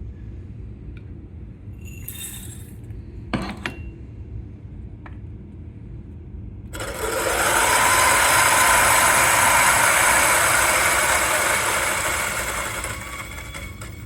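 Turin DF83V flat-burr coffee grinder, set to 700 RPM, grinding 16 grams of light-roast beans. It starts suddenly about seven seconds in, its motor whine rising to a steady pitch under the crunching of the beans, runs for about six seconds, then winds down. Before it, a short rustle and a knock.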